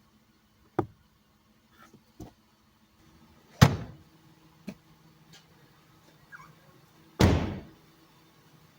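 Car panels and doors being shut: a few light knocks, then two heavy slams about three and a half and seven seconds in, the second with a short ringing tail.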